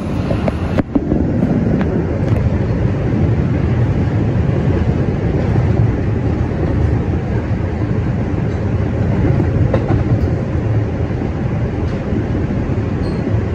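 An R142 subway car running along the track, heard from inside the car: a steady low rumble of steel wheels on the rails, with a few faint clicks over the rail joints.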